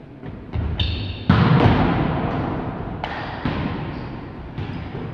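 Volleyballs being spiked and slamming on a sports-hall floor, each hit booming in the hall's long reverberation. The loudest hit comes about a second in, just after a short high squeak, and a few lighter thuds follow.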